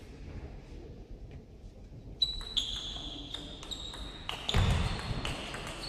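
Table tennis rally: the plastic ball clicks sharply off rubber-faced bats and the table, starting about two seconds in and going roughly two to three times a second. Short high squeaks run alongside the clicks, and one heavier thump comes a little past the middle.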